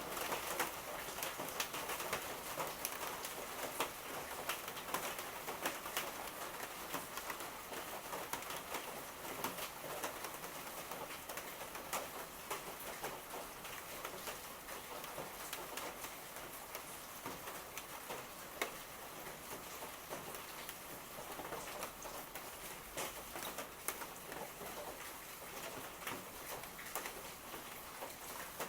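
Steady rain falling, with many close drops ticking sharply against a hard surface.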